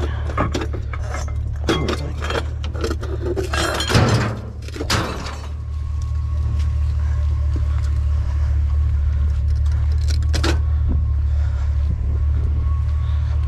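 A vehicle engine idling steadily, with clattering and clinking of junk being moved about over the first few seconds and a single knock later on.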